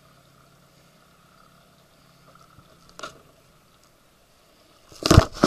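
Mostly quiet, with a faint steady hum and one small click partway through. Near the end come a few loud, rumbling bumps on the camcorder's own microphone.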